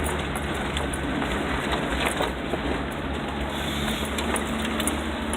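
Vehicle engine running steadily at low speed on a rough, washed-out dirt road, with a low drone and scattered small knocks and rattles.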